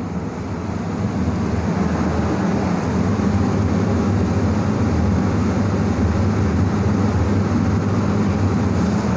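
Steady low mechanical rumble, like a running engine, growing slightly louder over the first second or so and then holding.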